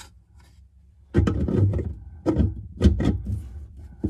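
Dull knocks and scraping from hands working on the chrome drain tailpiece and pop-up pivot rod under a sink. After about a second of quiet comes a cluster of heavy knocks and rubbing, then three sharper knocks.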